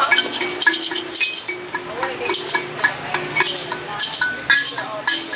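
Upbeat Afrobeats-style background music, here without vocals: a shaker keeps a steady rhythm of about two to three strokes a second over a repeating low melody.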